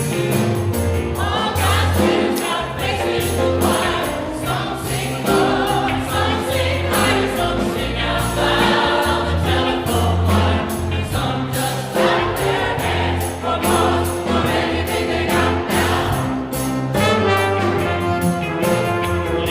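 Music: a choir singing with instrumental accompaniment over a steady bass line.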